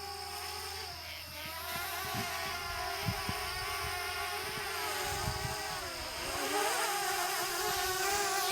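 DJI Mavic Mini drone's propellers whining as it hovers close to the ground, the pitch dipping and recovering as the motors adjust, about a second in and again around six seconds in. A few low thuds sit under the whine.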